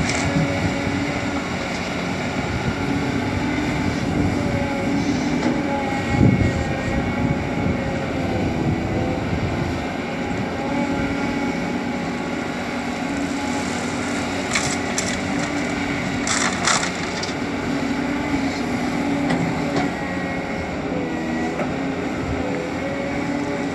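Caterpillar 320D excavator's diesel engine running steadily, its pitch shifting as the hydraulics take load while it digs and swings. A few louder knocks and crunches come through, the strongest about six seconds in and again about sixteen seconds in.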